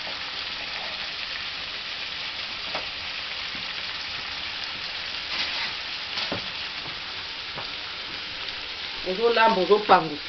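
Beef strips sizzling in a frying pan: a steady frying hiss, with a few light clicks as the meat is stirred. A voice is heard briefly near the end.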